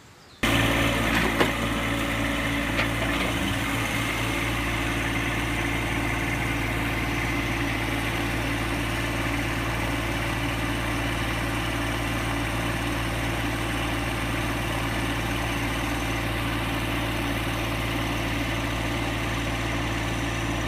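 A John Deere compact tractor's engine running steadily, with a constant low hum. It cuts in suddenly about half a second in.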